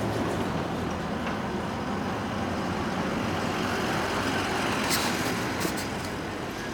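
Street traffic: a steady wash of motor-vehicle engine and tyre noise, easing slightly near the end, with a few short clicks about five seconds in.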